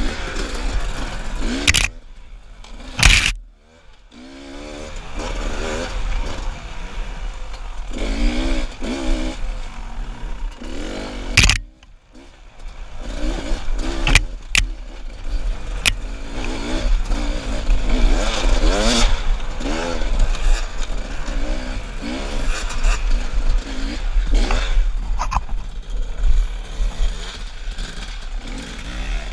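Enduro dirt bike engine revving up and down as it is ridden slowly over rocky trail, dropping away briefly twice before picking up again. Several sharp knocks and clunks from the bike striking rocks.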